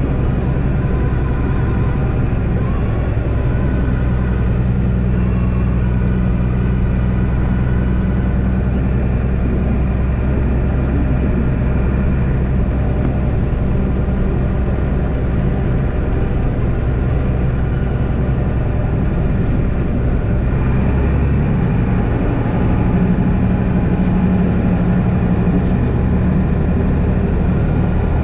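Mercedes-Benz Unimog U1400's inline-six diesel engine running steadily under load as the truck pushes a front-mounted snowplow through snow. About three-quarters of the way in the engine note changes, its deepest tone dropping away and a higher one growing a little louder.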